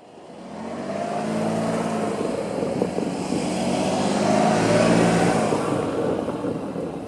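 A motor vehicle passing close by, its engine sound swelling to a peak about five seconds in and then falling away, with the pitch bending as it goes past.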